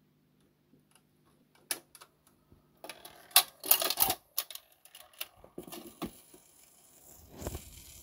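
Automatic record changer cycling a 78 rpm shellac record: a faint motor hum, then a run of mechanical clicks and clatter, loudest about three to four seconds in, as the record drops onto the turntable and the tonearm swings over. This is followed by the hiss of the stylus running in the lead-in groove.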